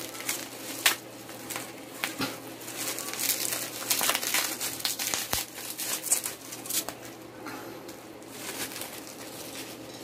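Plastic bubble wrap crinkling and rustling as it is unwrapped by hand, with many short sharp crackles.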